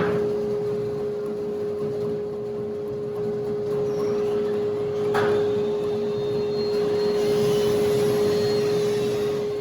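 A steady machine hum holding one fixed pitch, with two short knocks, one at the start and one about halfway through.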